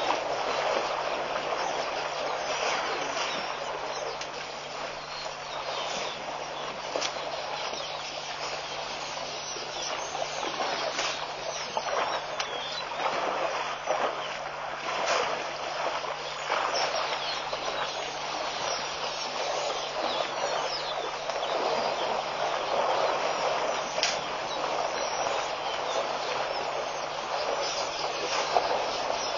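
Elephants splashing and wallowing in a shallow pond: a steady wash of churned water with irregular sharper splashes throughout.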